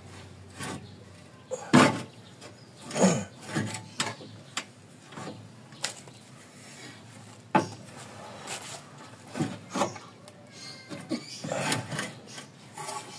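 Irregular clunks and scraping of metal parts being handled as the front lower control arm of a Daihatsu Taruna is worked loose from its mounts. Several sharper knocks stand out, the loudest about two seconds in.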